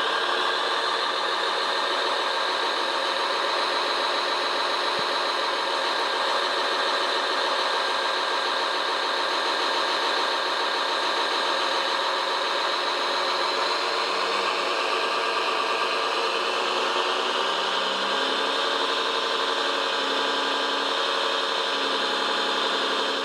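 Remote-controlled model construction vehicle running, with a steady engine sound. Its tone shifts slightly and deeper notes join about two-thirds of the way through.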